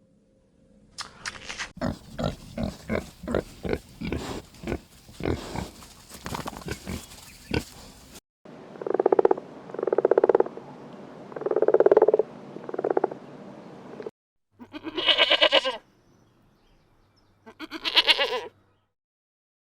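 Farm animals calling, in three abruptly joined stretches. First comes a fast run of short calls, about two a second. Then four longer calls, and near the end two higher calls.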